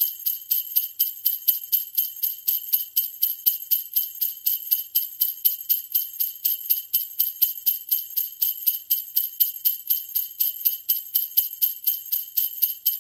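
Jingle bells shaken in a steady rhythm, about four shakes a second, with a bright, high ringing.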